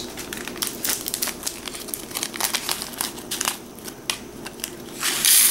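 Crinkling and crackling of a small foil candy packet being handled and torn open, with a louder burst of rustling near the end.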